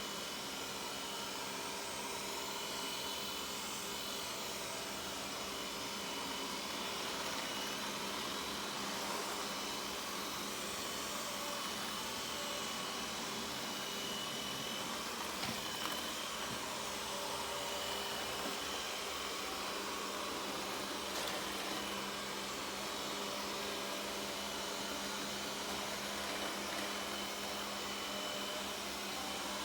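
Robot vacuum cleaner running steadily, its motor and brushes giving a constant whirring hum, with a couple of faint knocks about halfway through.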